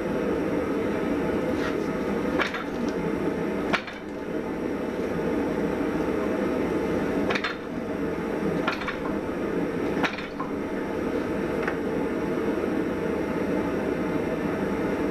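Blacksmith forging hot steel: about eight sharp metallic knocks at uneven intervals, over a loud, steady machine noise in the forge shop.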